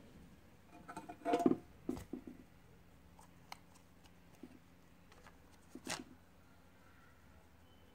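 18650 lithium-ion cells being handled: a cluster of clicks and rattles about a second in as a cell is pulled from the resistance tester's probe clamp and set into a cardboard box of cells, a few light ticks, then another short clatter as the next cell is taken from the box.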